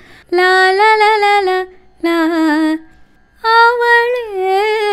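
A woman singing unaccompanied, demonstrating a line that combines two kinds of sangathi (melodic ornaments) on the word 'avale'. There are three sung phrases, the middle one short, with a wavering, sliding pitch.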